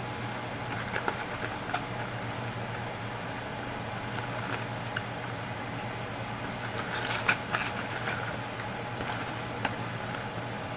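Chopped cabbage and carrot being worked into a bowl: scattered light rustles and clicks, with a short cluster of sharper clicks about seven seconds in, over a steady low hum.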